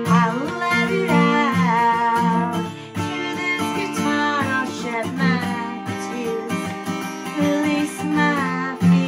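A woman singing while strumming chords on an acoustic guitar, her voice sliding between held notes over the strummed chords.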